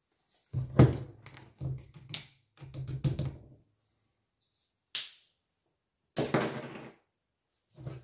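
Handling of a plastic tub of energy-drink powder and its scoop: a run of knocks and scrapes, a sharp click about five seconds in, then a short rustle about a second long and one last knock near the end.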